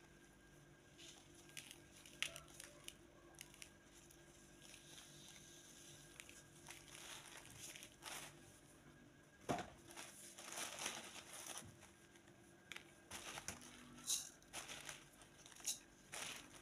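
Plastic bag crinkling and dried araar sprigs rustling as gloved hands scoop them out. It is quiet and comes in scattered bursts, with sharper crinkles growing busier in the second half.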